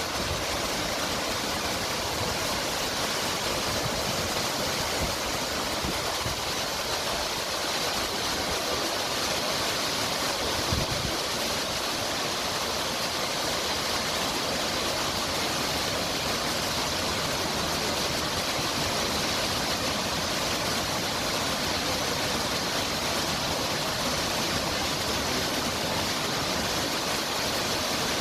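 Steady, even rush of the Ouzoud waterfalls' falling water, with one brief low bump about eleven seconds in.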